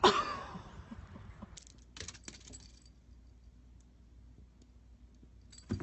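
A sudden clatter with a short ringing tail, then a few light clicks and taps about two seconds in, and one more just before the end.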